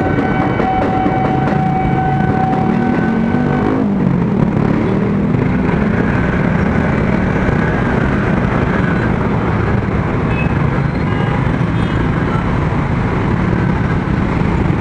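A railway level-crossing alarm rings steadily as an electric commuter train passes, and cuts off about four seconds in. Then a crowd of motorcycle and car engines rev up and move off across the tracks, and busy traffic runs on.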